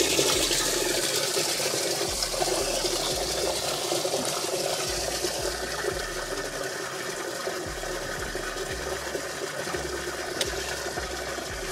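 Bass boat livewell pump running, water rushing steadily into the livewell and easing a little toward the end.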